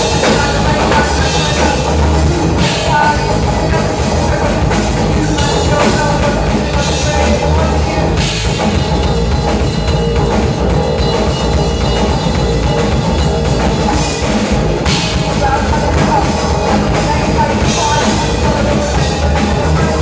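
Live rock music from an electric guitar and a drum kit, loud and continuous.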